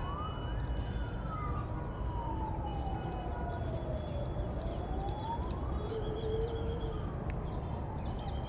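A siren wailing, its pitch rising and falling slowly in long sweeps of several seconds each, over a steady low rumble.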